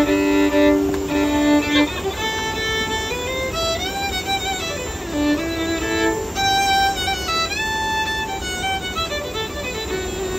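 Violin played solo: a bowed melody of held notes, with some notes sliding up or down in pitch.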